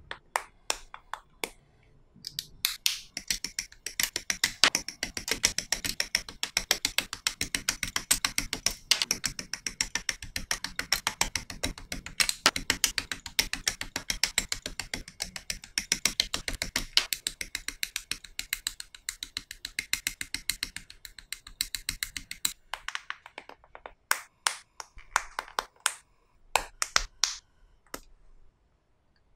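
Small plastic model kit parts clicking as they are handled and fitted together, a dense run of rapid clicks lasting about twenty seconds, then sparser clicks near the end.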